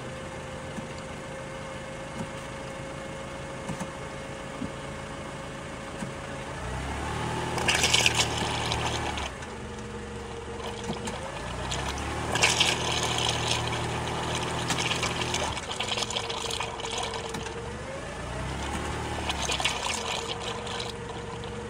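Automatic transmission fluid pouring from a cooler-line hose into a plastic tub, splashing, with the engine idling under it as the transmission pump pushes the old fluid out. The flow surges three times into louder, splashier spurts, about seven, twelve and nineteen seconds in.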